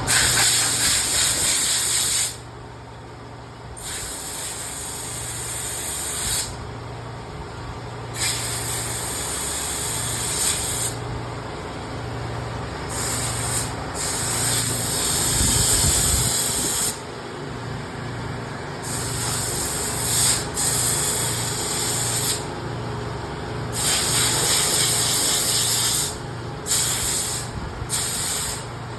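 Compressed-air blow gun hissing in repeated bursts of a few seconds each, blowing sawdust and debris out of lag bolt holes and seams between logs, over a steady low machine hum.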